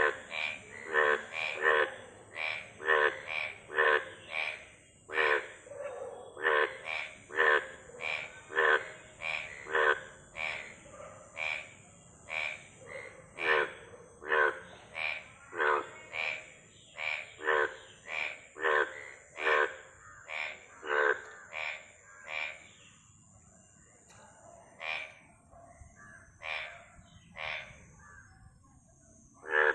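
Frogs croaking: short, rapid calls repeated over and over, about one to two a second, thinning out to scattered calls in the last several seconds. A steady high hiss runs underneath.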